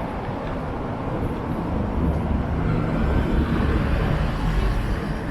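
City street traffic: road vehicles running, with one passing close that swells in the low rumble from about two seconds in and fades near the end.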